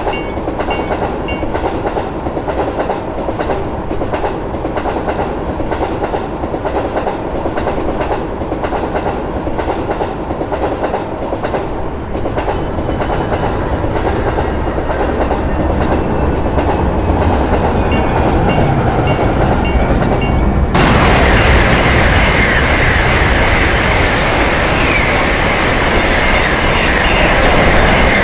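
Electric trains running past at speed, steel wheels clacking rhythmically over the rail joints. About three-quarters of the way through, the sound jumps abruptly to a louder, brighter train noise, as if another passing train takes over.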